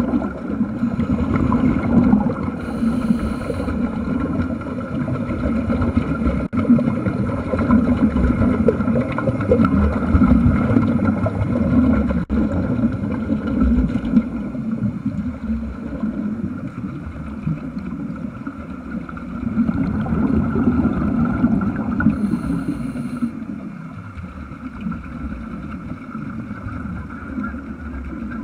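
Air bubbles venting from a Mark V hardhat diving helmet's exhaust, heard underwater as a continuous low gurgling rumble that swells and eases.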